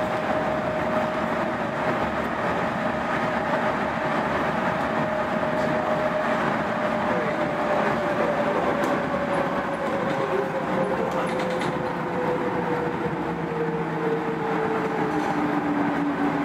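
Running noise of a Busan Metro Line 4 4000-series rubber-tyred train, heard from inside the car. A steady rumble carries a thin motor whine that falls slowly in pitch from about six seconds in as the train slows, and a second, lower whine joins near the end.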